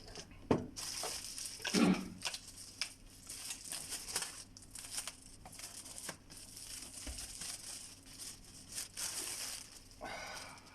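Plastic packaging crinkling and rustling as it is handled and pulled off the vacuum cleaner's parts, with small clicks and a heavier knock about two seconds in.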